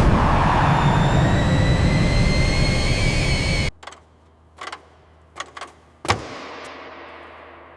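Harrier jet's engine running loud, a rushing noise with a faint whine that climbs slightly in pitch, cutting off abruptly about halfway through. A few faint clicks and a single sharp thump follow, fading out.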